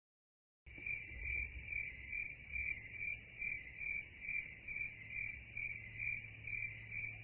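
Crickets chirping in a steady pulsing rhythm, about two to three pulses a second over a low hum, starting abruptly out of dead silence just under a second in, like a stock sound effect.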